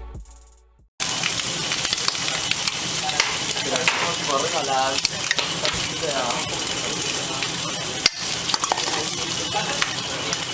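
Food frying on a hot flat-top griddle: a steady sizzle that starts abruptly about a second in, after music fades out, with a short break about eight seconds in.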